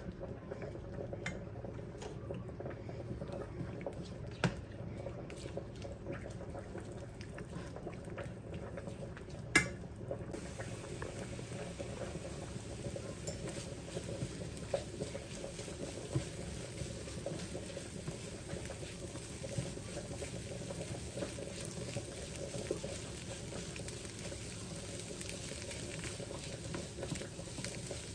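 Stovetop cooking: lentils boiling in a pot and eggs being scrambled in a frying pan with a little oil, giving a steady bubbling hiss. A few sharp clicks sound over it, the loudest about ten seconds in, and from then on the hiss sounds brighter.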